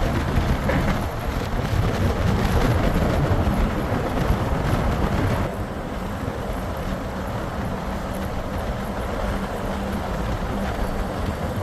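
Steady running rumble of a moving vehicle heard from inside. About halfway through, the higher hiss drops away and a steady low hum comes in.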